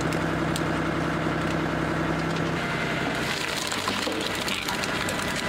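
A hydraulic log splitter's motor and pump run with a steady hum. About three seconds in, the hum gives way to crackling and splintering as the ram drives a log against the wedge and the wood splits.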